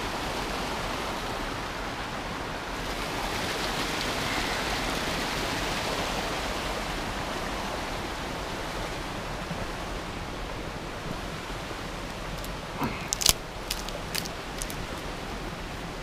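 Creek water rushing over rocks: a steady, even rush that swells a little and then slowly fades. Near the end come a few sharp clicks and knocks from scrambling over the rocks.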